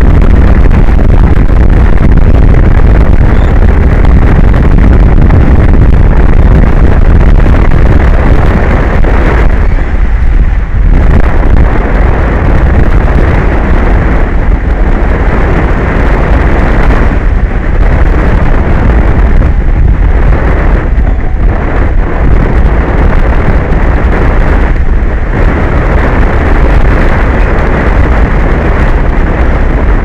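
Strong wind buffeting an outdoor microphone: a loud, continuous low rumble with a few brief lulls.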